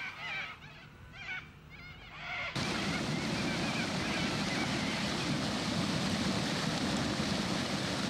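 Rising tidal water rushing and churning through a rocky river channel, a steady loud rush that cuts in suddenly about two and a half seconds in. Before it there are only a few faint calls.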